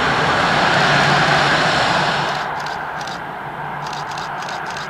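Boeing 787-9's Rolls-Royce Trent 1000 jet engines running at taxi power as the airliner taxis past, loudest about a second in, then fading from about two seconds on as it moves away.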